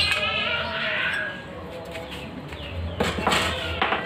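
Voices in the background, then a short scrape about three seconds in as the metal number plate is pulled off the scooter's front plate bracket.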